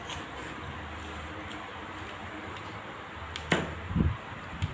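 Low steady hum of room noise, then in the last second and a half a few sharp clicks and a dull knock as a metal spoon scoops food from a plate.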